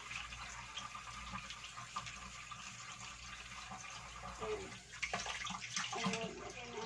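Tap water running while a baby bottle is scrubbed with a bottle brush, with small knocks of the bottle and brush throughout.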